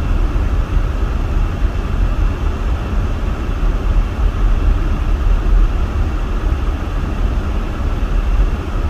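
Steady cabin noise inside a moving van: a low road and engine rumble, with the heater blower running hard to keep the windshield clear.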